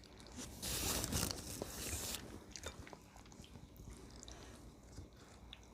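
A crunchy bite into food, with crackling for about a second and a half, followed by quieter chewing and small mouth clicks.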